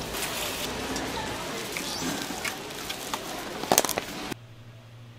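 Steady crackling noise, then a cluster of sharp clicks about four seconds in as hands press a clear plastic clamshell burger box shut. The sound then cuts to a faint low hum.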